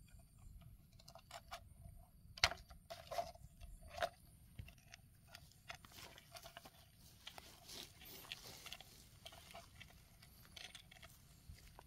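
Hands and a small digging tool scraping and crumbling through damp soil: faint scratching with scattered clicks, a few sharper scrapes two to four seconds in, and a busier stretch of scratching later on.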